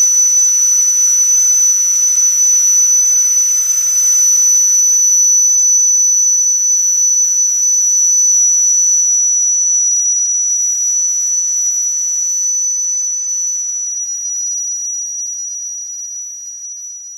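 Steam from a small model oscillating steam engine and its boiler, giving a steady high-pitched whistle over a hiss, which fades away toward the end.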